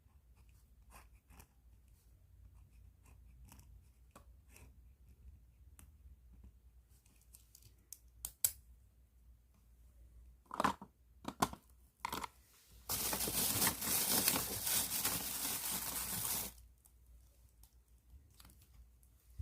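Light taps and clicks, then a few sharper clicks and crinkles, then about three and a half seconds of loud plastic-bag crinkling and rustling that stops abruptly.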